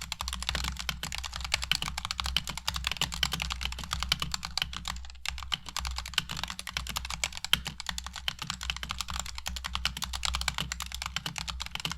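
Fast, continuous typing on a stock Razer Huntsman TE mechanical keyboard with its red linear optical switches unlubed and no dampening foam in the case. The keystrokes clatter densely, with a brief pause about five seconds in.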